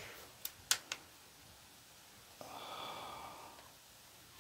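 A faint, breathy sigh lasting about a second, a little past the middle, from a man frustrated that a heat-pressed flock transfer has failed. Before it come two light clicks from handling the jacket.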